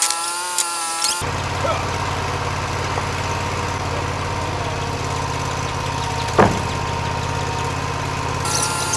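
Portable bandsaw sawmill running: a pitched machine drone with a few clicks, which changes abruptly about a second in to a steadier, lower engine hum. One sharp knock comes a little past the middle.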